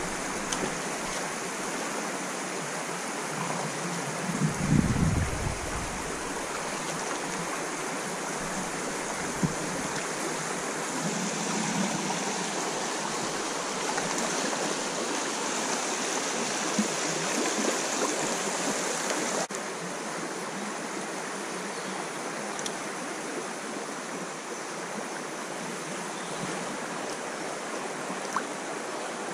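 Shallow creek water running steadily over a riffle, an even rushing hiss. A brief low rumble about five seconds in.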